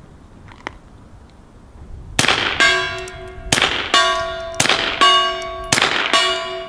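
Steel gong targets ringing as .22 bullets from a suppressed pistol strike them: about eight clangs in quick succession starting about two seconds in. Each clang rings on, and the hits come in two different pitches.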